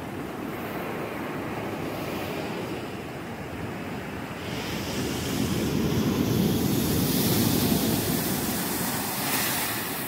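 Ocean surf: a steady wash of breaking waves that swells louder about halfway through and eases off near the end.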